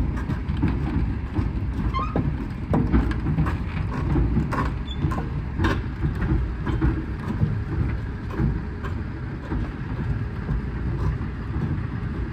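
Foden 6x6 recovery truck's diesel engine running under load as it tows a dead Centurion tank, the tank's steel tracks rolling with clanks and squeaks. A few sharp metallic clanks stand out in the first half.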